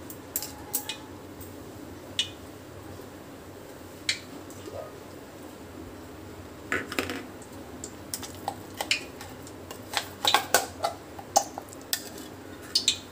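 Kitchen clatter: scattered sharp clinks and clicks of pots and utensils, several close together about ten to eleven seconds in, over a faint steady hiss.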